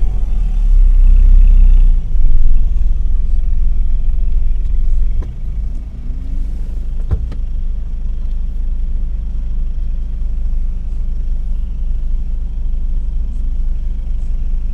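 Off-road vehicle's engine running with a steady low rumble. It is louder for the first five seconds, then eases off to a lower, even level. A single sharp knock comes about seven seconds in.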